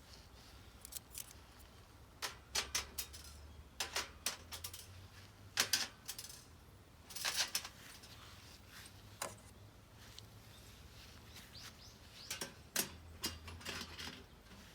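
Metal parts of a camping fire pit clinking and clicking together as it is assembled by hand, in scattered clusters of short, sharp clicks.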